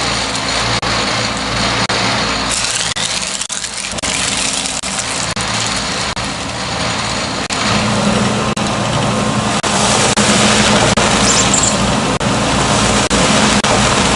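Heavy engine-driven machine running with a continuous mechanical drone and clatter. Roughly halfway through, a steady hum comes in and the whole sound grows louder, as if the machine is taking on load.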